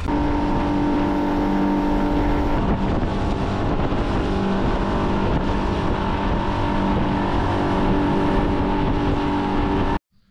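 A boat's outboard motor running steadily at speed, a constant engine hum under rushing noise, cutting off abruptly near the end.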